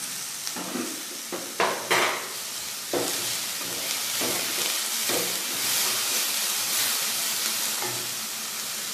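Julienned vegetables sizzling as they are stir-fried in a non-stick kadai, with a wooden spatula knocking and scraping against the pan several times in the first five seconds.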